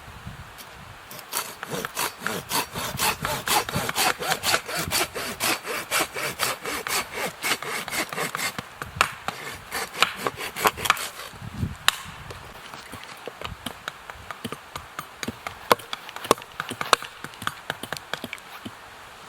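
Hand saw cutting through wood in quick back-and-forth strokes, about two to three a second. The sawing stops about eleven seconds in and is followed by scattered sharp snaps and clicks.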